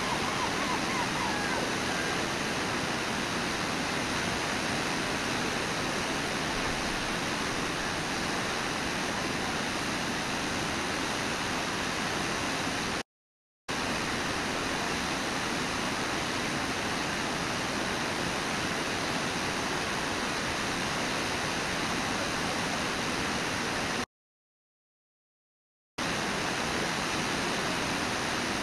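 Steady rushing of a river and waterfall, an even unbroken roar of water. It cuts out to silence twice: for a moment about halfway through, and for about two seconds near the end.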